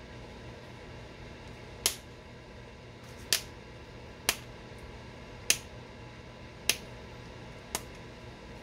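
Knapping a stone point: six sharp clicks of tool on stone, spaced about a second apart, as the edge is worked.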